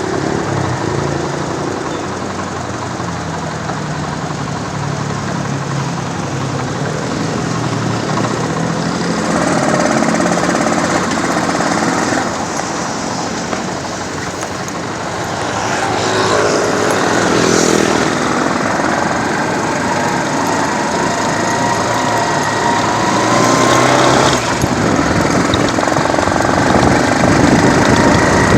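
A vehicle's engine running while on the move, with steady rough road and wind noise. Some brief pitched sounds from other traffic rise and fall over it, about ten and sixteen seconds in and again near the end.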